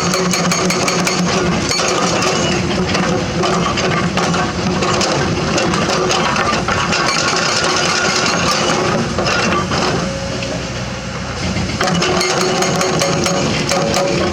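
Hydraulic excavator running under load, with frequent sharp metallic clanks and clicks of the bucket working against rock. It eases off for a couple of seconds about ten seconds in, then picks up again.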